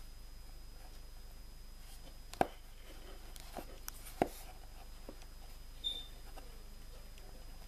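Fingertips handling and pressing soft polymer clay, with a few light clicks and taps, the sharpest about two and a half seconds in and just after four seconds in, and a brief high chirp near six seconds, over a faint steady hiss.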